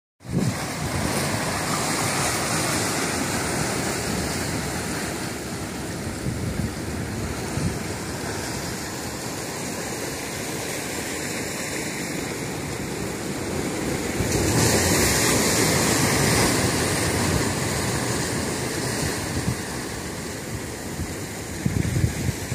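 Ocean surf breaking and washing over a rocky shore: a continuous rush of water that swells louder for a couple of seconds past the middle, then settles back.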